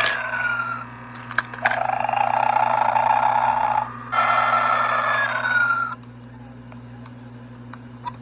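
Gemmy Snoring Santa's recorded snoring: a long rasping snore in, then a breath out with a whistle falling in pitch, repeating. It stops about six seconds in, leaving a low steady hum.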